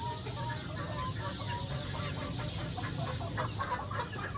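Chickens clucking in coops, a string of short calls.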